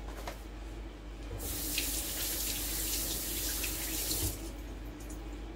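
Kitchen tap running into the sink while raw turkey steaks are rinsed under it. The water starts about a second and a half in and stops about three seconds later.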